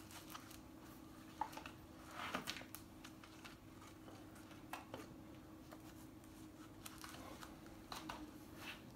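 Faint handling noise of a Nike Canyon sandal's hook-and-loop straps being adjusted on the foot: scattered soft ticks and rustles, with a sharp click about one and a half seconds in and a short rasp around two and a half seconds in.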